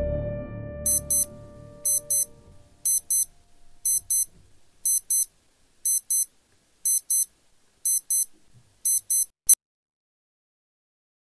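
Digital alarm clock beeping, high-pitched, in quick double beeps about once a second, nine times, then cut off by a sharp click.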